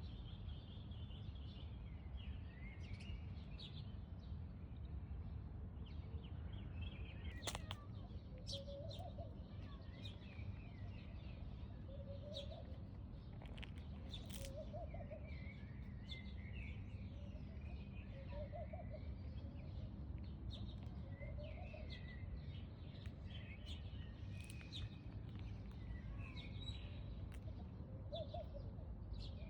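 Birds chirping and calling outdoors, with many short high chirps and a shorter, lower call repeating every second or two, over a steady low background rumble.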